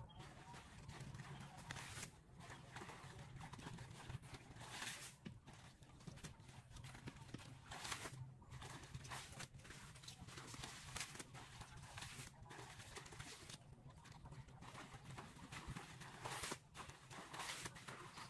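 Irregular splashing and sloshing of shallow muddy water as hands and legs work through a weed-choked ditch, a splash every second or two over a faint steady low hum.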